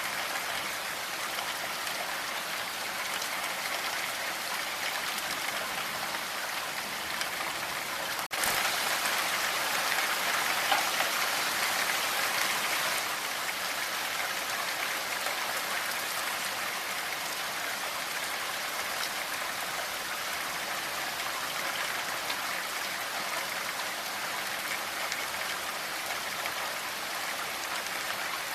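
Steady rain falling, an even hiss of many drops. About eight seconds in it cuts out for an instant and comes back a little louder for a few seconds, then settles to its former level.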